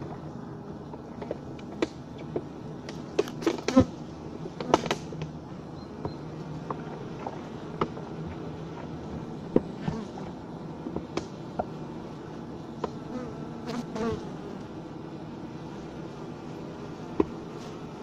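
Honey bees humming inside a Japanese-style frameless hive: a steady low hum. It is broken by scattered sharp ticks and short louder buzzes, bunched about three to five seconds in and again around fourteen seconds.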